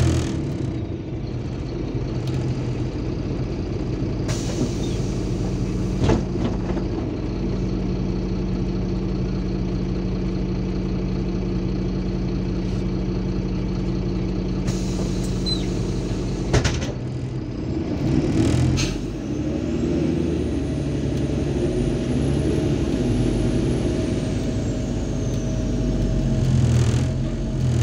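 Inside a MAZ 203 city bus: the diesel engine runs steadily at low revs, with two bursts of compressed-air hiss, each ending in a sharp click. In the second half the engine gets louder as the bus pulls away.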